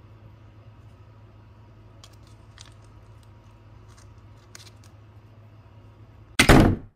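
A British shorthair cat coming down wooden stairs, a few faint ticks of its paws and claws on the treads over a steady low hum. Near the end, a loud, short rustling rub as the cat's head and fur brush against the camera's microphone.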